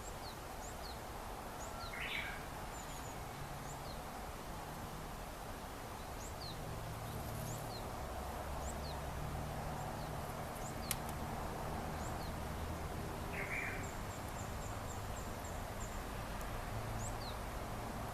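Outdoor background noise with a steady low rumble and small birds chirping in short high notes throughout, a brief louder call about two seconds in and again near thirteen seconds, and a single sharp click just before eleven seconds.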